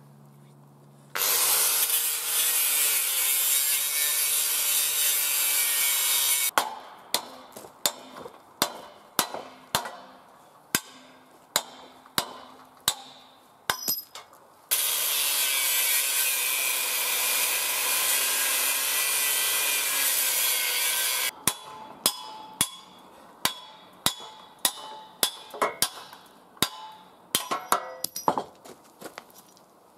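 A power tool cutting through the trailer's bunks in two long runs of about five and six seconds, its motor pitch wavering under load. Each run is followed by a string of sharp knocks with a short ring, about two a second.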